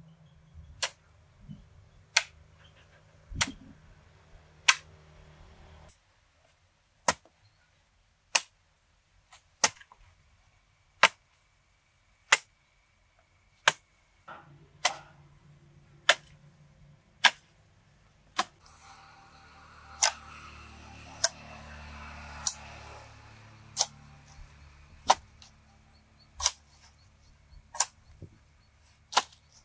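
A steady series of sharp knocks, about one every second and a quarter, over faint low background noise.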